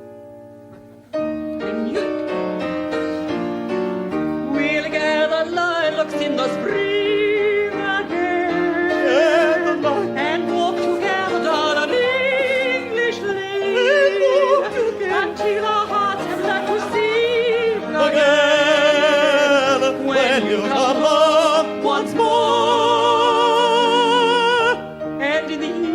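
A piano comes in about a second in, then an operatic falsetto soprano voice sings over it with a wide vibrato, ending on long held high notes.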